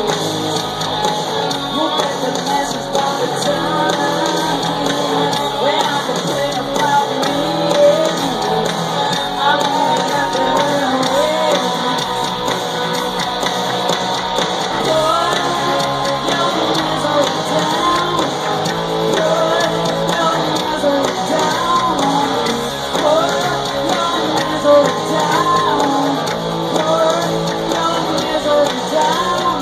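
Rock band playing live: guitars and drums with vocals.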